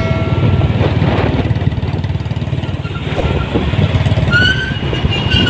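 Royal Enfield Bullet motorcycle's single-cylinder engine running steadily while riding along a city road. Short, slightly rising high-pitched tones come about four seconds in.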